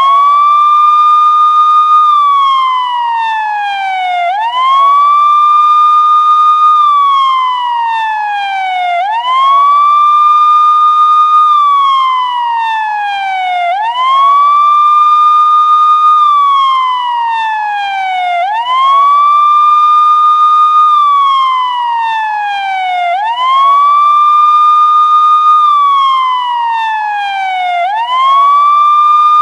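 Police siren wailing loudly in a repeating cycle: a quick rise in pitch, a short hold at the top, then a slow fall, about once every four and a half seconds.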